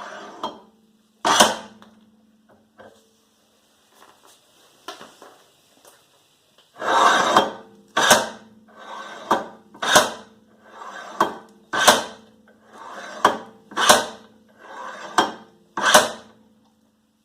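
Hammer blows on a car's rear wheel hub to knock it loose from its mounting. One strike comes about a second in, then about ten blows roughly a second apart start about seven seconds in, each ringing briefly.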